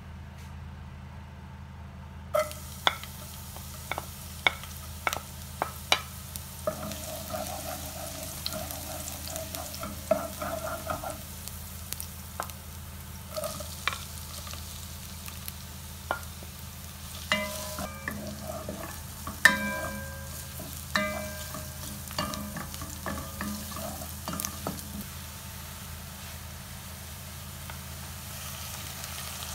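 Chopped onion frying in hot oil in a metal pot, sizzling, while a utensil stirs and knocks against the pot. There is a run of sharp taps early on and ringing clinks further in, over a steady low hum.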